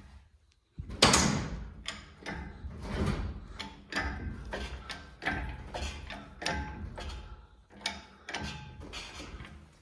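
Hydraulic engine hoist being pumped by its handle, a mechanical clunk with each stroke, about one a second, the first the loudest.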